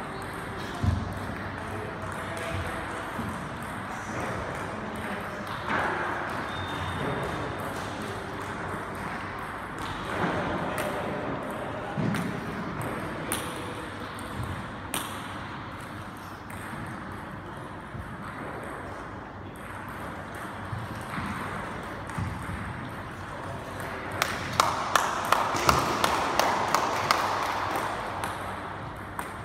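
Table tennis balls clicking on bats and tables, scattered hits at first, then a quick, regular run of about three hits a second near the end.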